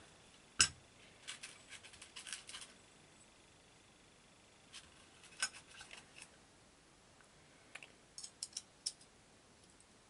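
Small metallic clicks and snips from hand tools being handled: one sharper click about half a second in, then short runs of faint clicks, the last run near the end.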